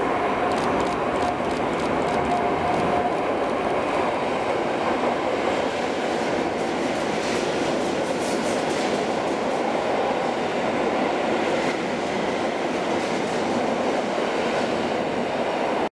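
Electric multiple unit set of EN71 and EN57 cars passing through an underground station platform, with a steady rumble and echo under the platform roof. Wheels clatter over rail joints, most densely about halfway through.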